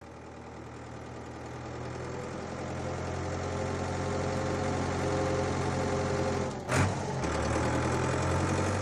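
Cartoon tractor engine sound effect, running steadily and growing gradually louder. About seven seconds in there is a short loud thump, after which the engine's low note drops.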